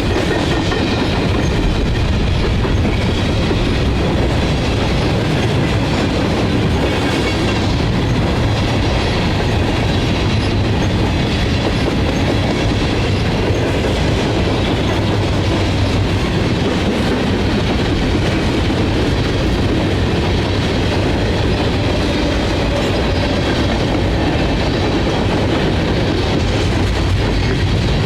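Freight train cars rolling steadily past, wheels clicking over the rail joints with a continuous rumble, and a faint thin squeal from the wheels.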